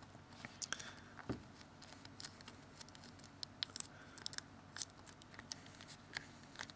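Faint, scattered light clicks and taps from a phone repair: fingers pressing a replacement screen down onto the phone's frame to stick it in place, with small plastic and metal parts handled.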